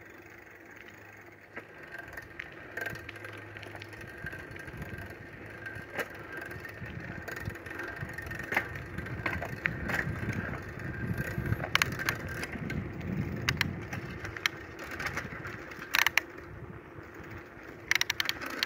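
Bicycle ridden over a rough dirt trail: a low, uneven rumble of tyres on dirt with many sharp clicks and rattles from the bike, busiest in the middle and near the end.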